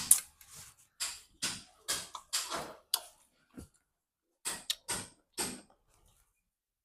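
A run of short mouth sounds, smacks and slurps, from someone licking food off their fingers while eating, about a dozen in quick succession with a pause of about a second midway.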